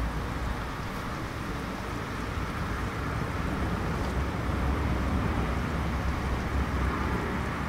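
Steady rain ambience: an even hiss of rainfall over a low rumble, with a few faint ticks.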